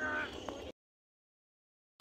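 A faint, indistinct sound that cuts off abruptly under a second in, followed by complete silence: a dead gap in the audio.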